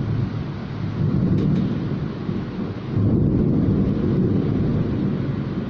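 Very heavy downpour rushing steadily, with deep low rumbling that swells about a second in and again about three seconds in.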